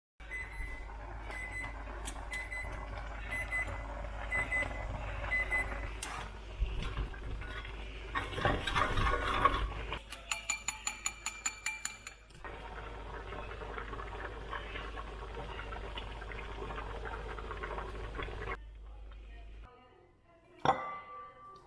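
Kitchen sounds in a run of short cuts. First an electronic appliance beeps repeatedly, about twice a second, for several seconds. Then chopsticks click rapidly against a ceramic bowl while beating eggs, followed by a steady hiss and a single sharp knock near the end as the wok is tipped over a serving bowl.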